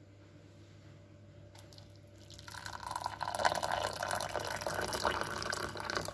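Hot boiling water poured into a ceramic mug onto a tea bag, a steady splashing pour that starts about two and a half seconds in and stops suddenly near the end.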